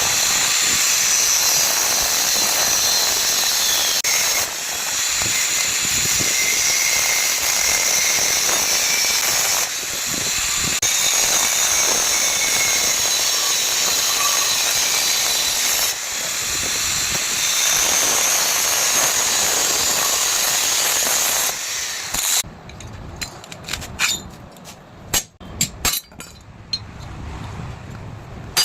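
Angle grinder working steel in long passes. A loud rasping noise carries a wavering high whine, with short breaks about every five to six seconds. It stops abruptly about 22 seconds in, leaving a few sharp metal clicks and knocks.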